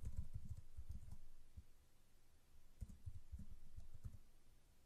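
Computer keyboard typing: quick runs of dull key taps, one at the start and another about three seconds in.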